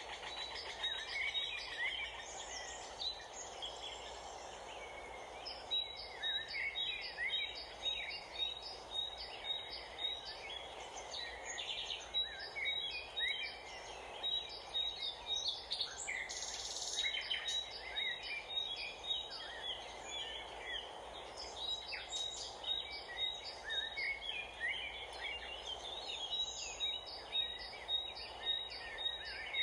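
Several birds chirping and calling in quick, overlapping notes, including runs of short, evenly repeated high notes, over steady background noise.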